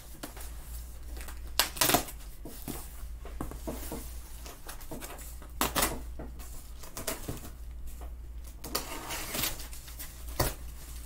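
Scissors cutting the packing tape on a cardboard shipping box and the box flaps being pulled open: irregular scrapes, clicks and knocks, the loudest about two seconds in, over a steady low hum.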